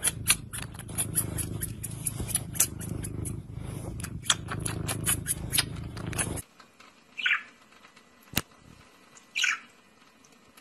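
Tabby cat purring with a steady low rumble while it gnaws a person's finger, its chewing giving many sharp clicks. After about six seconds this cuts off and a budgerigar gives two short chirps, with a single sharp click between them.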